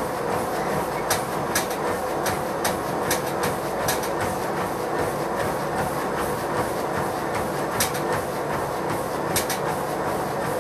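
Treadmill running under a runner: a steady drone from the belt and motor, with the runner's footfalls landing on the deck as short sharp knocks every half-second or so.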